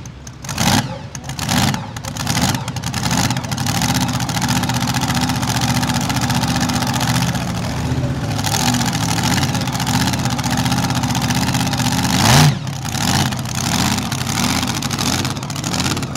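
Supercharged engine of a Super Modified 4wd pulling truck blipping its throttle several times, then running steadily, with a sudden quick rev about three quarters of the way through.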